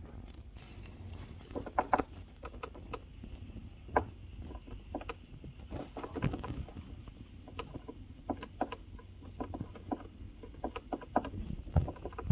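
Irregular knocking and clicking from a couch: short, sharp knocks, some single and some in quick clusters, with no steady rhythm.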